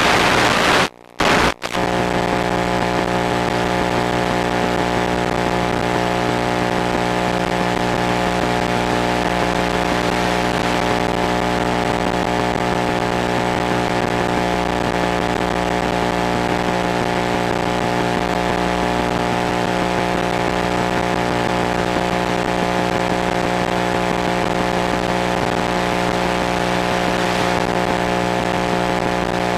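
Steady electrical buzz with many even overtones over a bed of hiss: the audio channel of an analog FPV video link as recorded by an FPV monitor's built-in DVR. It starts as plain hiss, drops out briefly about a second in, then the buzz holds unchanged.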